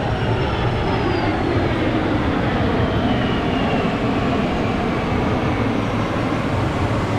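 Large four-engine military jet flying past, a steady rush of jet noise with an engine whine that falls in pitch as it passes over the first few seconds.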